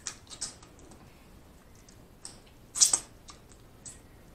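Close-miked eating of boiled crawfish: small wet clicks and shell crackles as the meat is sucked out, with one louder wet sound nearly three seconds in.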